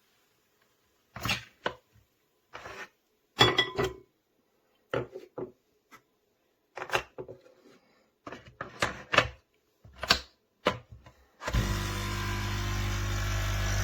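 A series of short knocks and clicks from objects being handled, with gaps between them. Then, about eleven seconds in, a steady motor hum starts.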